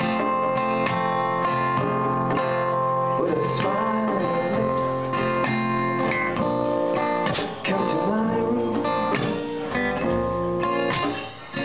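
Live band playing: acoustic guitar strumming over a drum kit, with a couple of brief dips near the middle and the end.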